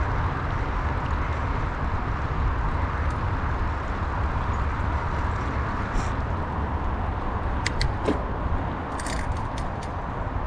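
Mountain bike rolling along a dirt trail: a steady low rumble of wind on the microphone and tyre noise, with a few sharp clicks and rattles from the bike about six seconds in and again near the end.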